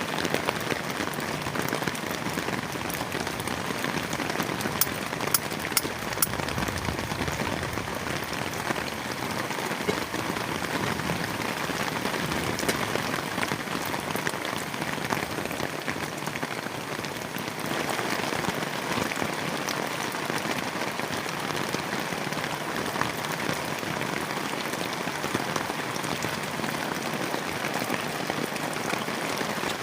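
Heavy rain falling steadily on a plastic tarp shelter, a dense even patter with a few sharper drop ticks in the first several seconds.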